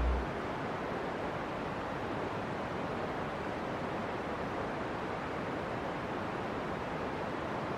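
Fumarole steam and gas venting from the vent: a steady, even rushing hiss.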